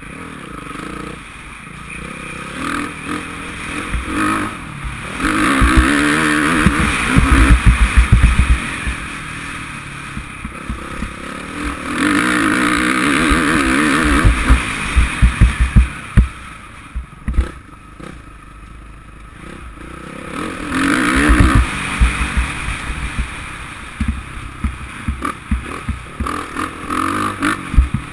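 Suzuki RM-Z450 four-stroke single-cylinder motocross engine heard from a helmet camera, opening up in three long bursts of throttle and easing off between them. Wind buffets the microphone and thumps come through as the bike runs over a rough dirt track.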